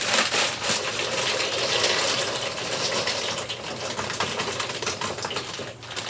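Dry pasta shells rattling out of a plastic bag into a pot of water, a dense steady patter of many small clicks that dips briefly near the end.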